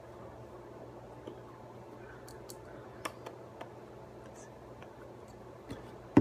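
A low steady hum with a few faint clicks and light taps scattered through, and one sharp knock just at the end.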